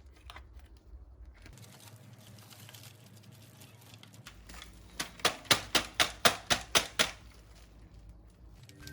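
A quick run of about ten sharp clicks or taps, about five a second, lasting about two seconds.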